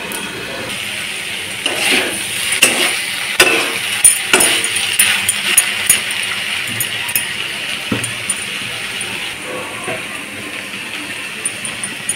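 A steel plate-lid lifted off a kadai and a metal spatula stirring chana masala: a run of sharp metal clinks, knocks and scrapes about two to six seconds in, with a few more later, over a steady hiss.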